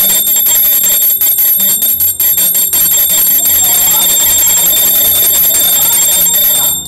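A hand bell rung rapidly and without a break, a fast run of clapper strikes under a bright, steady ring, as part of the ritual when the Pongal pot boils over. It stops abruptly at the very end.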